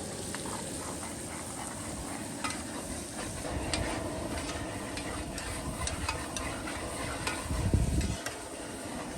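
Shrimp sizzling in butter with sautéed onions, bell pepper and celery in a pot while a spoon stirs, with scattered clicks of the spoon against the pot. A brief low rumble about three-quarters of the way through.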